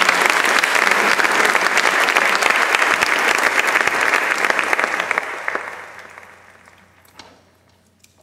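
Audience applauding. The clapping dies away between about five and six and a half seconds in, followed by a couple of stray claps.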